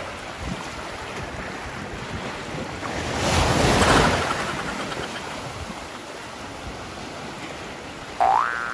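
Ocean surf washing into the shallows, with a wave surging in and splashing against a rock face about three to four seconds in. A rising tone starts near the end.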